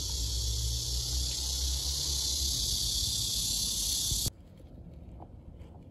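A steady high-pitched hiss over a low rumble, cutting off suddenly about four seconds in.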